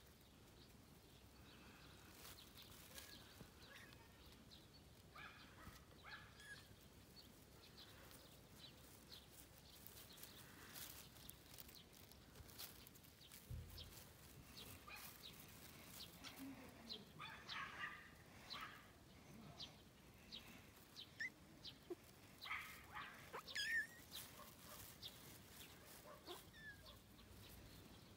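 Faint outdoor quiet with scattered short, high chirping calls and light clicks. The calls come in small groups, and a few louder ones fall about three-quarters of the way through.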